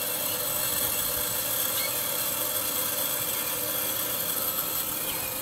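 R-22 refrigerant hissing steadily as it flows through the service hoses into an evacuated recovery cylinder, drawn in by the cylinder's vacuum.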